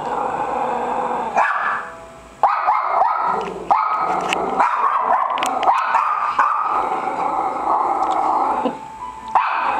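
Two small dogs vocalizing back and forth: long, wavering calls mixed with yips and short barks, with a brief lull about two seconds in and another near the end.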